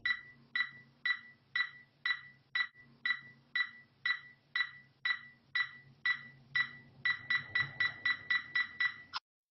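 Intro sound effect: short, sharp pitched ticks like a wood block, about two a second, quickening to about four a second near the end and then stopping, over a faint low hum.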